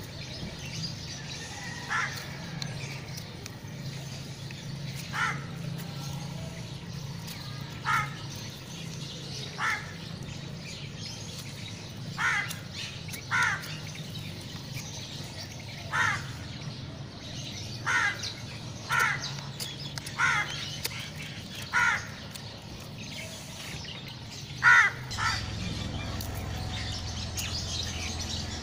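A crow cawing repeatedly, short calls a second or two apart, over a steady low background rumble.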